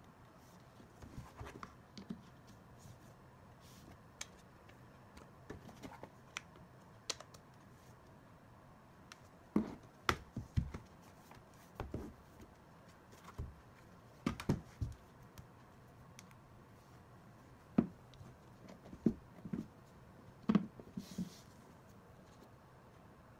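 Handling noise from an iPad Pro in a Ztotop folio case: scattered light taps, clicks and soft knocks as the case is turned over, its cover folded, and the tablet set against the desk. The sharper knocks come in the second half.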